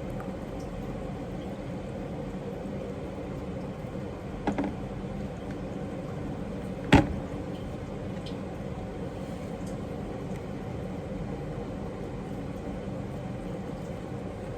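A steady low hum of household noise with two knocks: a soft one about four and a half seconds in and a sharp, louder one about seven seconds in.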